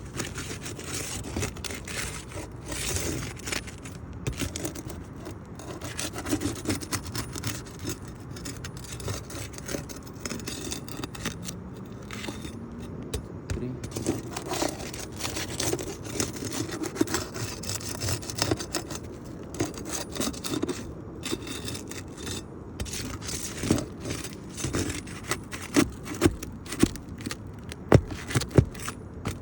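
Flat bar scraping and prying under roof shingles to break their sealed edges, with several sharp knocks near the end.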